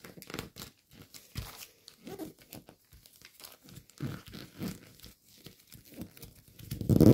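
Metallic gold foil origami paper crinkling and rustling in irregular short bursts as it is handled and pressed into a petal fold.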